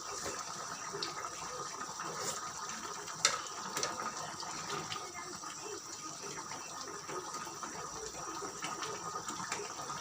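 Tomato sauce with chicken simmering in a pan, bubbling steadily with many small irregular pops, and a few sharp clicks between about two and four seconds in.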